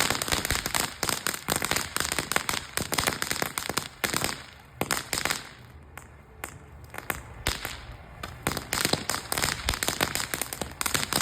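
Firecrackers going off in rapid, crackling strings of pops, with a brief lull about four seconds in and a thinner patch in the middle before the popping picks up again.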